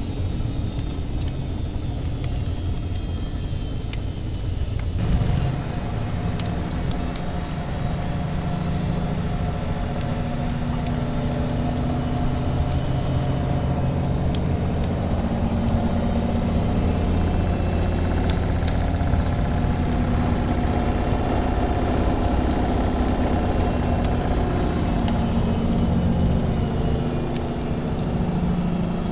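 Washing machine running with a steady motor hum that grows louder and fuller about five seconds in. Faint crackles of a wood fire run through it.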